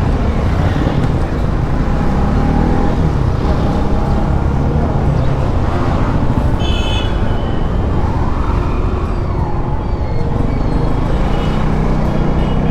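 Motorcycle riding on a highway over a steady heavy low rumble, its engine note rising and falling. Brief high-pitched tones sound about seven seconds in and again near the end.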